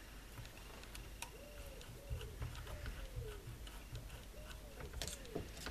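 Faint clicks and light taps from fingers working the small ball bearing on an electric mower motor's armature shaft as its grease seal is pressed back in.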